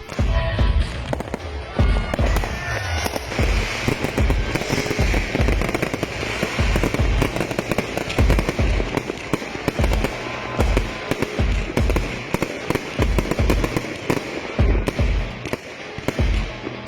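Fireworks display: an irregular run of deep shell bursts, about one or two a second, with crackling over the middle stretch, and music playing along with it.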